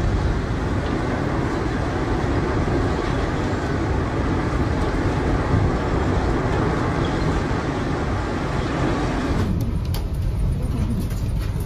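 Violent storm wind blowing hard, a dense steady rush of noise with no let-up. About nine and a half seconds in it changes abruptly to a thinner low rumble with scattered sharp clicks.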